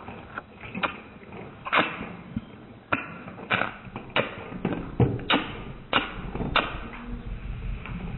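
A golden retriever eating dry kibble from a stainless steel bowl: irregular sharp crunches and clicks of kibble and teeth against the metal bowl, about a dozen strong ones from roughly two seconds in.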